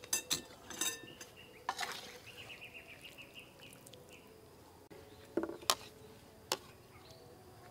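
Metal ladle clinking against a large metal wok and a ceramic bowl while soup is ladled out, a few sharp clinks spread through, with a short, high, fast trill in the background about two seconds in.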